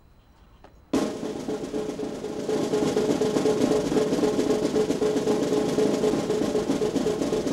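Military band music: rapid snare drum rolls over steady held notes, starting suddenly about a second in.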